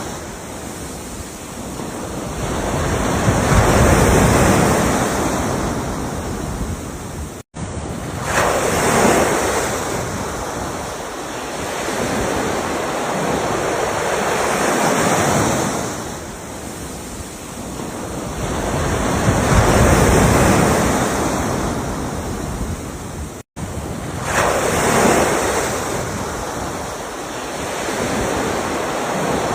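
Ocean waves breaking and washing up in slow surges, each one swelling and fading every several seconds. The sound cuts out for an instant twice.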